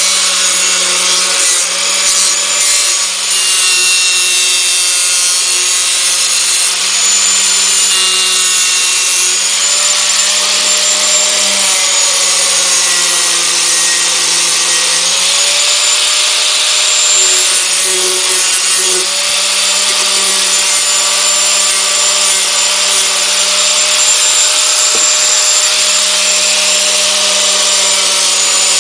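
Small corded angle grinder running steadily against the edge of a wooden box, a motor whine over rough grinding noise. The motor's pitch sags for a few seconds near the middle as the disc is pressed into the wood.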